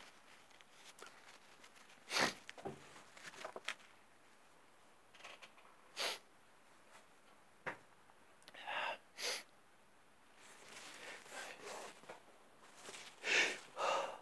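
A man blowing his nose wetly and sniffling after a sneezing fit: a series of short, noisy nasal blasts, the loudest two near the end.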